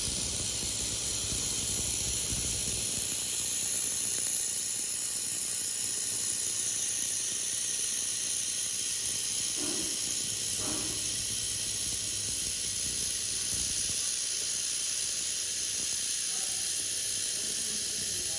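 Steady hiss of a 2000 W handheld laser welder running a weld on 6 mm mild steel with filler wire fed from its wire feeder.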